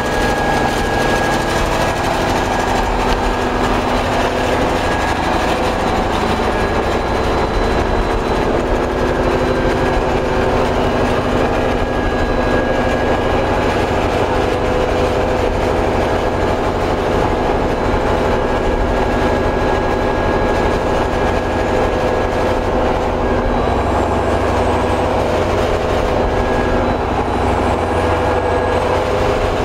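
Large six-cylinder gas engine-generator set of a biomass gasification power plant, running steadily at constant speed, a loud even engine sound with a steady hum.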